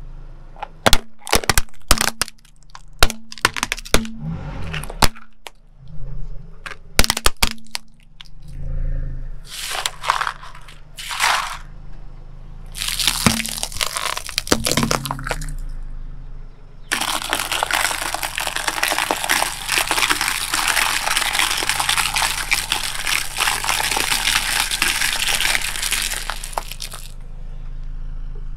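Objects crushing under a slowly rolling car tyre: first a run of sharp cracks and pops, then separate crunches. After that comes about ten seconds of continuous crackling and crunching as a row of painted eggs breaks one after another, stopping about a second before the end.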